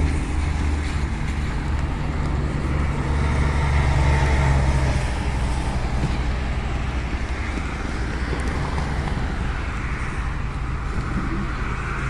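Highway traffic on a rain-soaked road: the hiss and spray of cars and trucks passing, swelling twice as vehicles go by, over a steady low hum.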